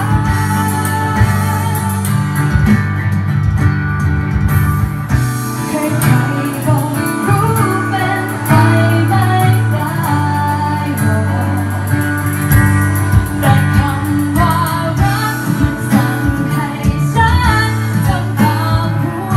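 Live acoustic band: a woman singing a pop song into a microphone, accompanied by acoustic guitar and percussion played with sticks.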